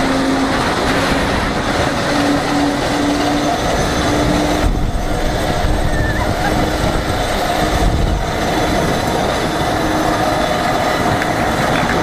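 Cable ride running along its steel cables: a steady loud rush of air and running gear, with a low humming whine that wavers a little in pitch.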